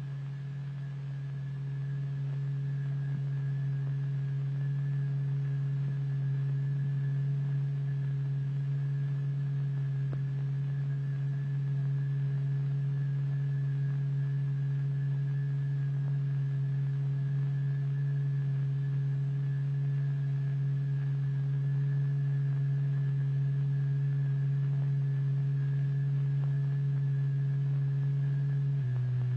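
Steady low electronic tone from a tone generator, the vibration driving the fluid drop, with a few faint overtones above it. It steps down slightly in pitch near the end.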